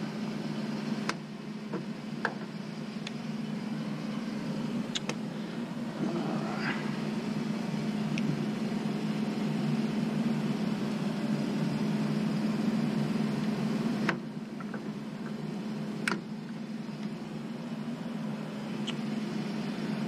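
A steady low machinery hum, with a few sharp metallic clicks as cartridge fuses are pulled from and pushed into the disconnect's fuse clips with channel-lock pliers.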